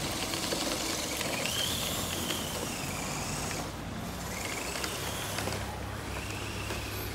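Electric drive motor and gears of an RC Ford F-150 6x6 truck whining as it drives on a dirt trail. It comes in several spells a second or two long, rising and falling in pitch as the throttle changes.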